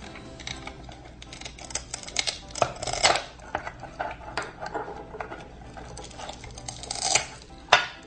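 Toy knife clicking and knocking on a toy cutting board while a velcro-joined toy orange is cut. Short rasps of velcro pulling apart come about three seconds in and twice near the end.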